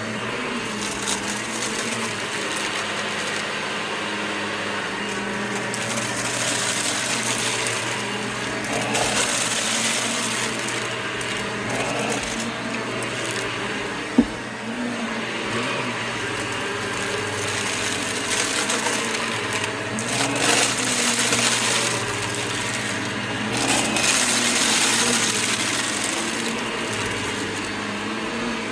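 Vacuum cleaner running steadily on its motor hum, its hiss swelling and fading several times as it sucks up crunchy debris, with one sharp click about halfway through.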